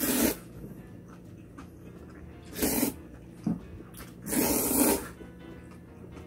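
Person slurping spicy cold buckwheat noodles (bibim naengmyeon): a short slurp at the start, another about two and a half seconds in, a brief one just after, and a longer slurp from about four to five seconds in, over soft background music.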